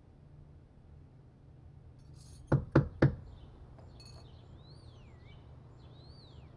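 Three quick, sharp knocks on a wooden door about two and a half seconds in, followed by a couple of faint, falling bird chirps.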